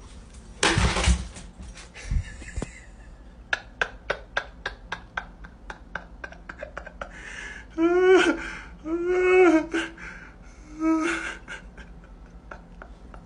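A brief rush of noise and a thump, then a dog's claws clicking on a hard floor. After that a boxer-type dog gives three short howling calls, each rising and falling in pitch.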